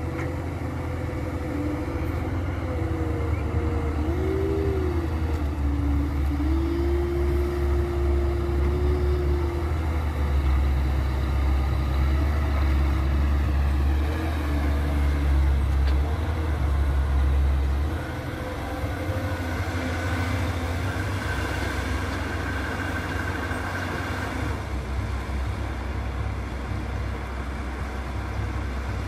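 Caterpillar 320B hydraulic excavator's diesel engine running steadily under load as it digs and loads a dump truck, with short whines from the hydraulics gliding up and down. About two-thirds of the way through, the engine note drops to a lower level.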